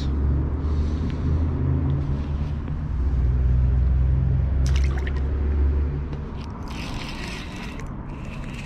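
A low rumble, loudest for the first six seconds, with water splashing as a crappie is let go at the river's edge, about five seconds in and again around seven to eight seconds.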